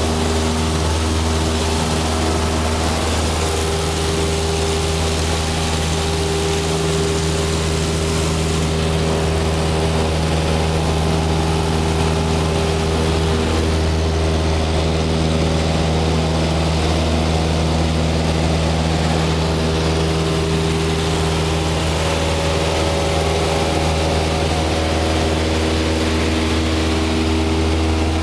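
Single-engine light airplane's piston engine and propeller running at takeoff power during lift-off and climb-out, heard inside the cabin as a loud, steady drone.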